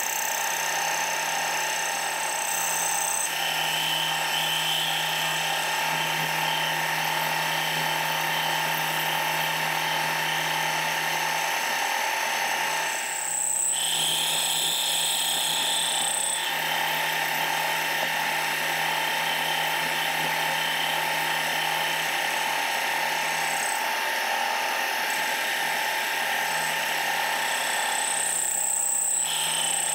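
Milling machine taking a cut with a 5/8-inch end mill, milling a flat on the tang of an MT3 arbor under flood coolant: a steady machining noise over a constant hum. A high-pitched whine from the cut gets louder twice, about halfway through and again near the end.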